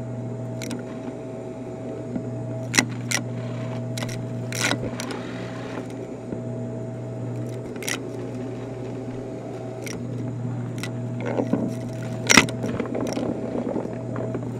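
Corded upright vacuum cleaner running on carpet with a steady motor hum. Sharp clicks and short rattles come now and then as bits of debris are sucked up through the nozzle, the loudest near the end.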